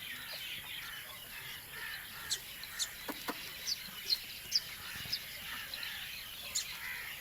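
Birds chirping and calling in a busy background chorus, with sharp high chirps scattered throughout. There are two faint knocks about three seconds in.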